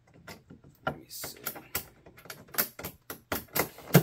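Irregular clicking and rattling of mounting hardware being handled and hand-tightened on a kayak motor-mount plate, with a louder knock near the end.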